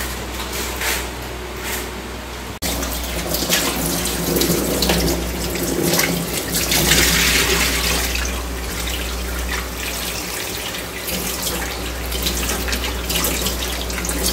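Kitchen tap running into a steel bowl in a sink while hands rinse and turn pieces of raw fish, water splashing. The running water starts abruptly about two and a half seconds in.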